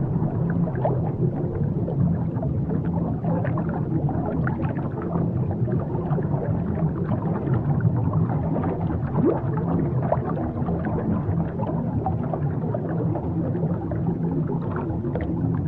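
Steady underwater ambience: a continuous low rumble with many small bubbling and gurgling sounds scattered through it.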